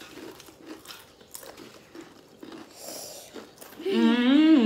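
Faint crunching of corn chips being chewed, then about four seconds in a high voice starts a loud, long, wordless sound with a wavering pitch.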